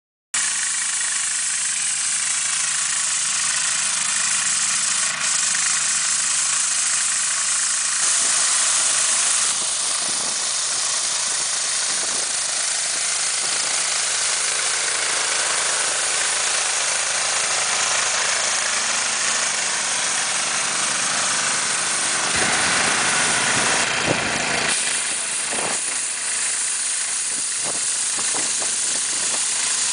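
Small petrol engine of an ATV-mounted snow sweeper running at high revs while its rotating brush sweeps snow. The sound is a steady, loud hiss-like engine noise with a few abrupt jumps.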